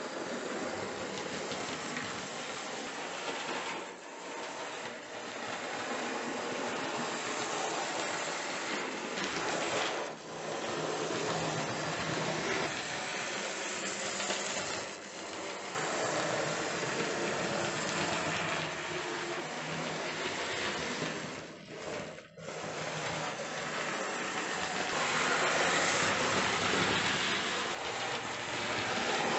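Hornby OO gauge BR Standard 9F 'Evening Star' model locomotive running on the layout's track: the steady mechanical running of its small electric motor and wheels on the rails, swelling and fading in loudness, with a brief drop about two-thirds of the way through.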